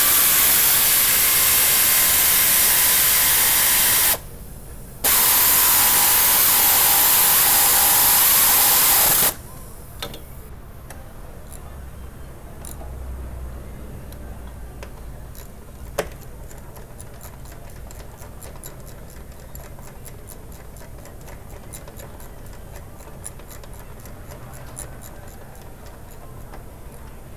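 Compressed air hissing loudly in two long blasts of about four to five seconds each, with a steady whine under the hiss. Afterwards come quieter clicks and taps of hand tools.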